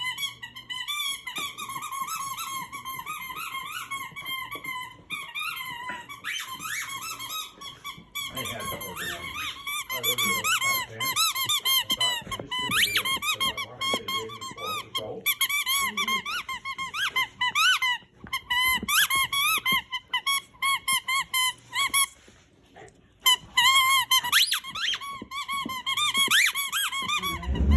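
A dog's rubber squeaky toy squeaked over and over in quick, uneven runs as the dog chews it, with a short pause about three quarters of the way through.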